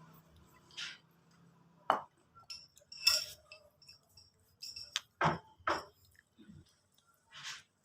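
Scattered sharp clinks and knocks of small hard objects being handled. The loudest come about two seconds in, about three seconds in, and as a pair a little after five seconds.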